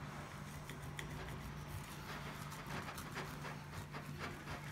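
Knife sawing through a crisp piadina on a plate: faint, irregular crackling and tapping as the blade cuts the toasted crust, over a steady low hum.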